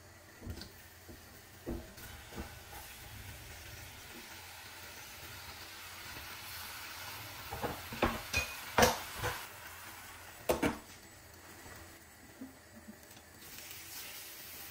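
Food frying in a pan, with a steady sizzle. A utensil clicks and knocks against the pan now and then, most often and loudest about eight to eleven seconds in.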